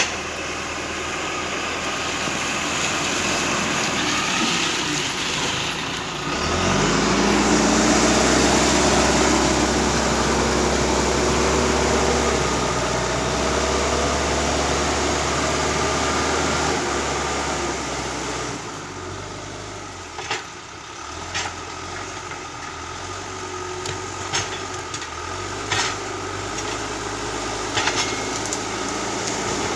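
John Deere 310E backhoe loader's diesel engine running; about six seconds in it revs up and works hard for some twelve seconds, then drops back to a lower speed. A few sharp knocks come in the last ten seconds.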